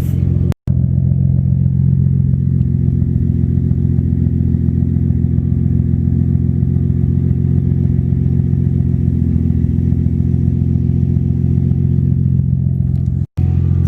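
A steady low mechanical drone that holds one pitch throughout, cut off completely for an instant twice: about half a second in and near the end.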